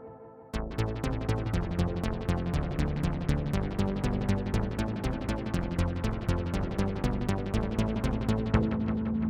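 Roland Alpha Juno-1 synthesizer preset played through a Nemesis delay pedal. A held chord fades out, then about half a second in a new patch starts: a fast, even pulse of short bright notes, about eight a second, over lower sustained notes.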